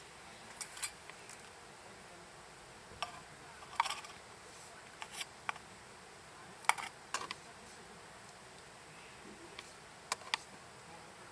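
Wood campfire crackling: scattered sharp pops and snaps at irregular intervals over a quiet background.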